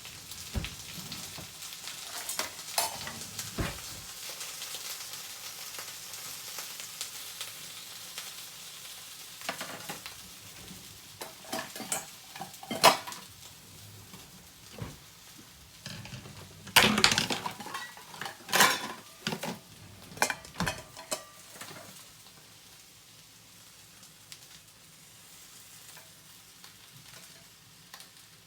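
Eggplant frying in oil in a pan, a steady sizzle. In the middle, a run of sharp clatters and clinks from a utensil against the pan, after which the sizzle goes on more quietly.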